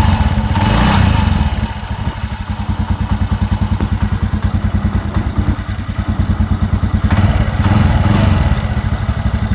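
TVS Ntorq scooter's single-cylinder engine running at idle, picking up briefly twice, near the start and about seven seconds in. The noise from it is the sign of a faulty one-way (starter) clutch.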